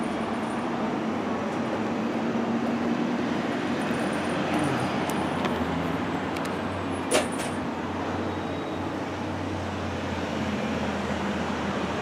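Steady road traffic noise with vehicle engines running, heard through the louvred openings of a church belfry. There is one sharp knock about seven seconds in.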